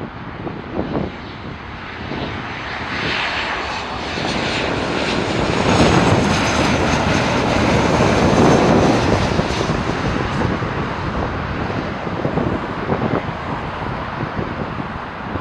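Jet engines of a Southwest Airlines Boeing 737 on low final approach, passing overhead: the noise grows louder to a peak about halfway through, then fades as the jet moves away toward the runway.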